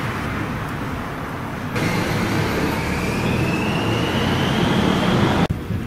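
Motor vehicle running with street traffic noise around it. In the middle stretch its whine rises steadily in pitch, and the sound changes abruptly twice.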